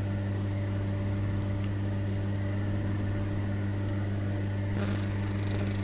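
Steady electrical-type hum with a hiss beneath it, kitchen background noise while fried rice is stirred in a steel kadhai, with a few faint light ticks of the ladle against the pan.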